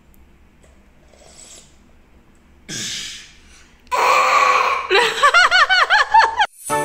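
A young girl slurps briefly from a small steel tin, then lets out a loud exclamation and a quick run of high-pitched giggles.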